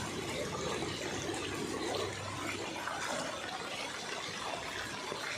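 Steady rushing and splashing of floodwater.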